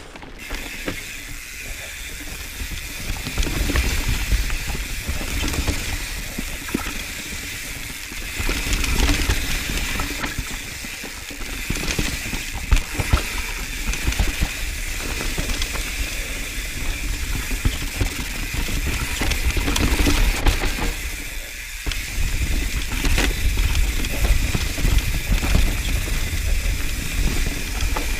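Mountain bike riding down a rough dirt singletrack, heard from a camera mounted on the bike: tyres rolling over dirt and roots with frequent clicks and knocks as the bike rattles over bumps, and a steady rumble of wind on the microphone. A steady high buzz runs underneath.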